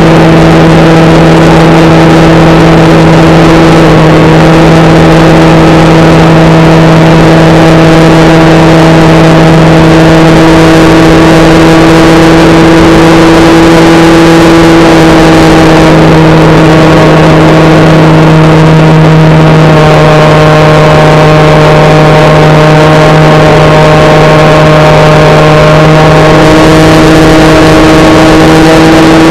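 Electric motor and propeller of a HobbyKing SkyEye FPV plane in flight, picked up by its onboard camera: a loud, steady droning whine. Its pitch shifts slightly about halfway through and again near the end as the throttle changes.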